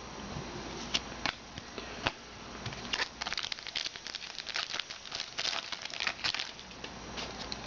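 Trading-card pack wrappers crinkling and tearing as packs are opened and cards handled, a run of irregular small crackles and clicks that is busiest in the middle.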